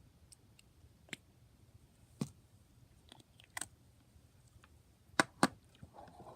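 Faint, scattered clicks and small pops from a wet, jiggly putty being handled and squished, with two sharper pops in quick succession near the end.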